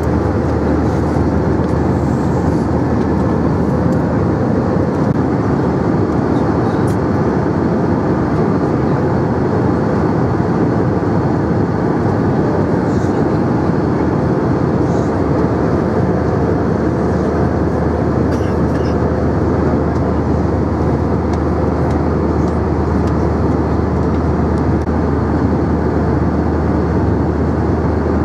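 Steady cabin noise of an Airbus A321-200 airliner at cruise altitude, heard from a passenger seat: an even, unchanging rush of airflow and engine noise, heaviest in the low range.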